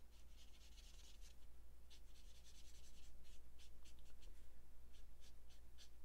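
Marker tip stroking over cardstock: quick, light scratchy strokes, a few a second, as the ink is blended in. They grow busier about two seconds in.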